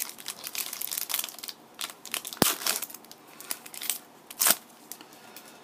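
Foil wrapper of a Pokémon trading card booster pack crinkling as it is opened: a run of sharp crackles, with louder ones about two and a half and four and a half seconds in.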